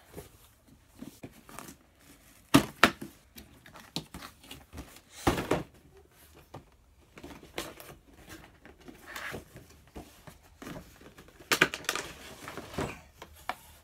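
Cardboard toy box and plastic packaging being handled and opened: scattered taps, scrapes and rustles, with two sharp knocks about two and a half seconds in, a longer rustle a little after five seconds, and a cluster of handling sounds near the end.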